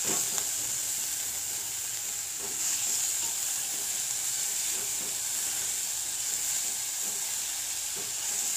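Fenugreek leaves and brinjal pieces sizzling steadily in hot oil in a kadai as they are stirred, with a steel spoon scraping the pan now and then.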